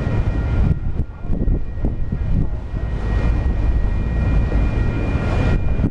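Autorack freight cars rolling past: a steady rumble and rush of steel wheels on rail with scattered clacks and knocks, and a thin high squeal that comes and goes.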